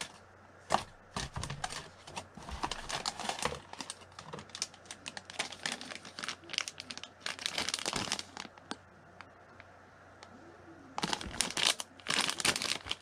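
Packaging of a soft-plastic fishing bait being handled and turned over, with irregular small crackles and crinkles in several clusters, busiest a few seconds in, around eight seconds in, and near the end.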